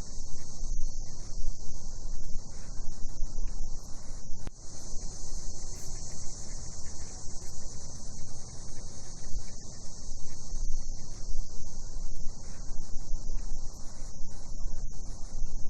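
Cicadas buzzing in a steady, continuous high-pitched chorus, with a low rumble underneath.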